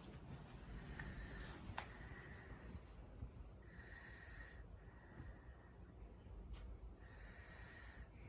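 A sleeper snoring: three snoring breaths about three seconds apart, each with a high hiss.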